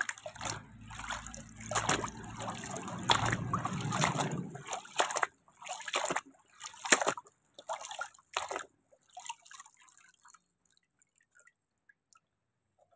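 Muddy water sloshing and splashing as a plastic toy auto rickshaw is swished and scrubbed by hand in a basin, then a few separate drips and splashes that fade out after about ten seconds as the toy is lifted from the water.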